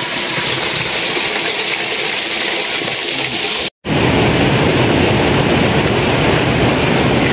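Steady rush of running water, broken by a brief cut about three and a half seconds in. After the cut it is fuller, with water rushing fast down a concrete irrigation channel.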